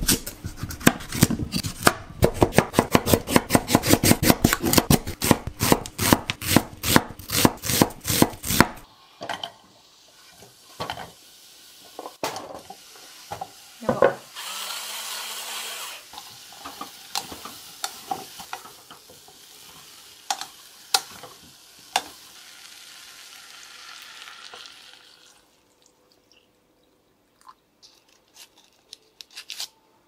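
Kitchen knife chopping kabocha squash on a wooden cutting board: quick, even strokes, about three a second, for the first nine seconds. Then scattered knocks and clinks of pieces and a saucepan, with a soft hiss for a while before it goes quiet.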